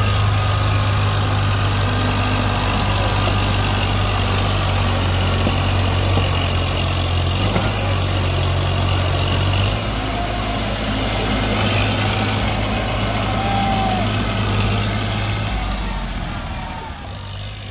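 Heavy diesel engine running steadily at a low, even drone. Its note shifts about ten seconds in, and it dies down briefly near the end.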